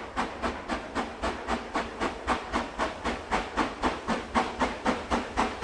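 Ex-LMS Princess Coronation class 4-6-2 steam locomotive working hard up an incline, its exhaust beating evenly at about four beats a second and growing louder as it approaches.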